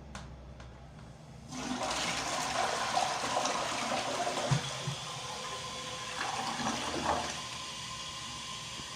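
Edesa Campeón toilet flushing: a small click, then about a second and a half in a sudden loud rush of water with gurgling for several seconds, settling near the end into a steady quieter hiss as the tank refills.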